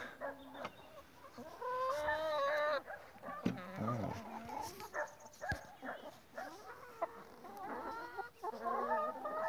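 Domestic hens clucking, with drawn-out wavering calls about two seconds in and again near the end.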